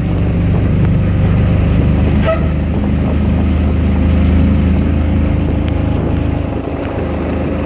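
Small motor taxi's engine running steadily as it drives along, heard from inside the open-sided cab with road noise, and a short click about two seconds in.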